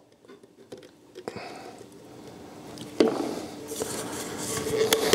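Canned chicken worked out of an upturned metal can into a ceramic baking dish: light handling noise with a sharp tap about three seconds in, then a run of clicks and knocks from the tin can against the dish near the end.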